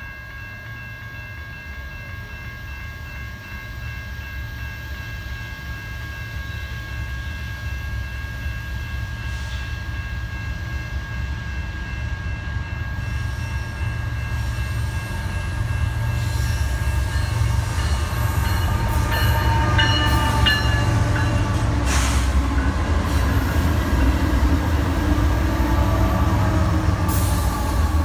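BNSF double-stack intermodal freight train approaching behind its diesel locomotives, a low rumble growing steadily louder, with faint steady high-pitched tones above it. Near the end the locomotives reach the microphone and the container cars' wheels begin rolling by.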